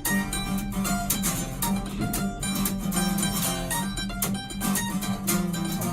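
Background music led by a plucked guitar, a steady run of picked notes.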